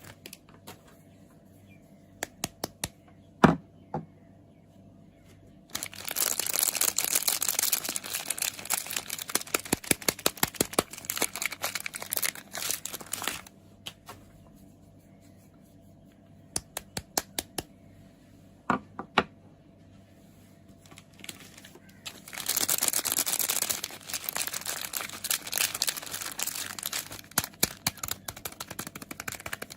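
Soap packaging being unwrapped: two long spells of crinkling and tearing, with quieter stretches of scattered taps and clicks between them, the loudest a sharp knock about three and a half seconds in.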